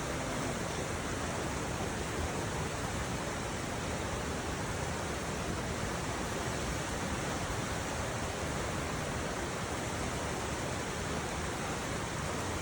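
Steady, even rushing noise of water, unbroken and without separate splashes.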